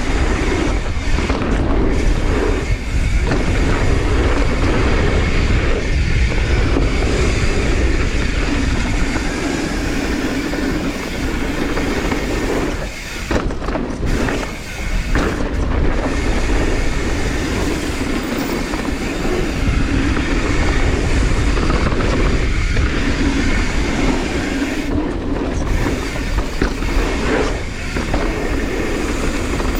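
Mountain bike riding fast down a dirt jump trail: knobby tyres rumbling over the dirt and the bike rattling, with steady wind buffeting the microphone, and a couple of brief lulls about 13 and 15 seconds in.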